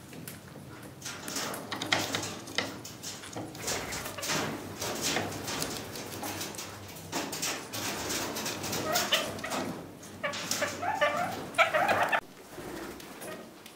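Kakariki parakeet pecking, nibbling and scraping with its beak at objects on a wooden board: an irregular run of clicks and scratches, with a short burst of bird chattering calls about ten seconds in.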